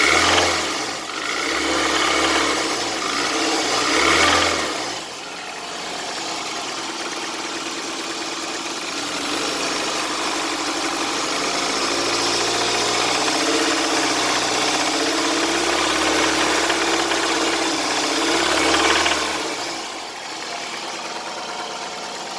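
Toyota 1AZ-FE 2.0-litre inline-four petrol engine running with a beginning knock from the piston and connecting-rod group of the fourth cylinder, a sign of wear at high mileage. It is blipped up a few times in the first five seconds, held at a raised speed for a while, then drops back to idle near the end.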